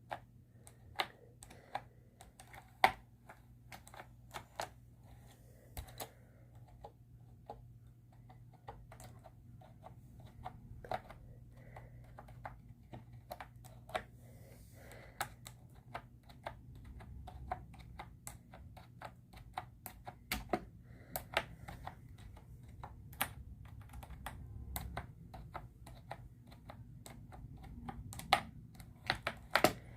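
Keys being typed on a 'creamy' mechanical keyboard: an irregular patter of soft key clicks, with a few sharper, louder strokes scattered through.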